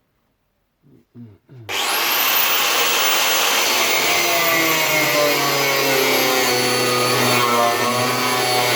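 Angle grinder switched on about two seconds in, its whine rising as it spins up, then running steadily at full speed on the car's steel floor.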